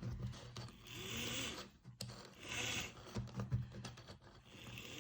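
N scale Lima-motored model locomotive on the test track: a quiet scraping, whirring mechanical noise over a low hum, coming in surges about once a second.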